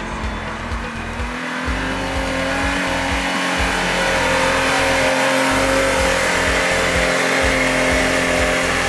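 An off-road SUV's engine running hard at high revs, its pitch rising a little in the first couple of seconds and then holding steady as the rush of noise grows louder, then cutting off suddenly near the end. Electronic music with a steady beat plays underneath.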